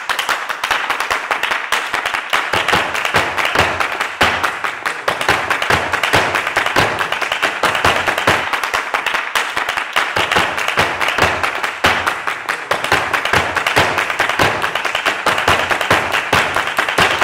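Castanets clattering in dense, fast rolls, with the dancers' heel-and-toe footwork stamping on the stage floor in sharp strokes and deeper thuds.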